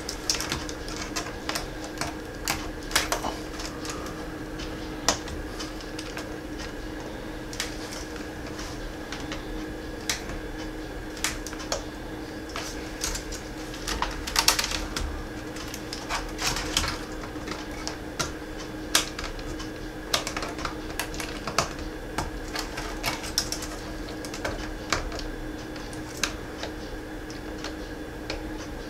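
Irregular plastic clicks and snaps of a laptop keyboard and its keys being pressed down into the top case to seat it, over a steady low hum.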